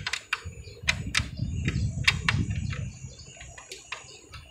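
Irregular sharp plastic clicks and knocks, with a low scraping rumble, from a replacement circuit board being pushed and worked into its plastic mounting in an air-conditioner unit.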